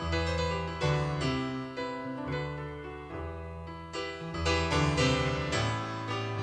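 Background piano music: a gentle melody of struck notes, each ringing and fading as the next one starts.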